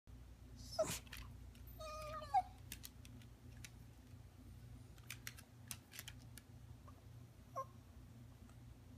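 Rat terrier whining in short high cries that slide in pitch, about a second in, again around two seconds in, and once more near the end: pleading to be let up onto the couch. Between the cries come light clicks of the dog's claws on a hardwood floor.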